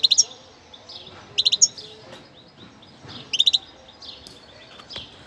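A first-year European goldfinch singing. Three short, loud runs of rapid high notes come about every one and a half seconds, with softer twittering between them.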